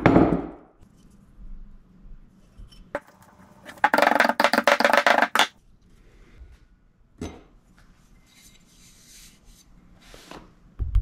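A hammer tapping on a steel bearing-carrier plate to seat a pressed-in part flush, with a loud ringing hit at the start and a quick run of taps a few seconds in, then single knocks and clinks as the metal carrier plates are set down on the bench.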